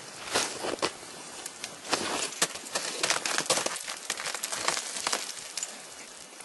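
Ice axes and crampons striking and scraping the ice of a frozen waterfall as a climber moves up: a string of sharp hits and scratches, thinning out near the end.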